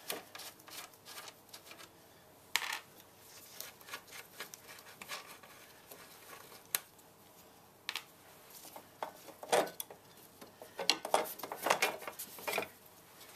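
A metal hand tool clicking and clinking against a car battery's terminals and hold-down clamp, in scattered sharp clicks. A busier run of rattling clinks comes near the end.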